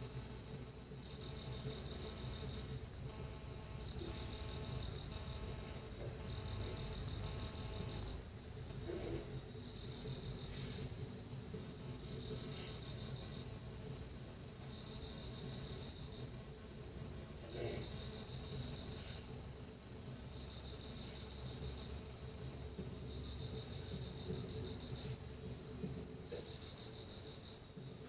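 Insects stridulating: a continuous high-pitched trill that swells into louder trills about a second long, roughly every two seconds, over a low background rumble.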